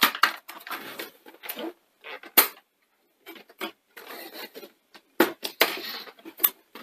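Plastic front panel of a 1980s Mitsubishi VCR being worked off its clip tabs by hand: plastic scraping and rubbing, broken by several sharp clicks, the loudest about two and a half seconds in and a few more near the end.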